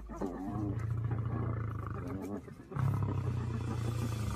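Spotted hyenas growling in long, low rumbles, broken by a short pause, with brief higher bending calls between them.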